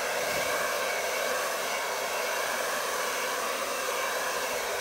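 Hand-held hair dryer running steadily, blowing wet acrylic paint across a canvas: an even, unbroken rush of air.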